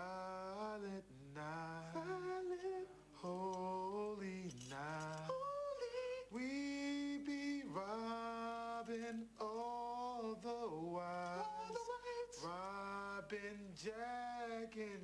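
Men singing a cappella: a slow vocal melody of long held notes, with no instruments.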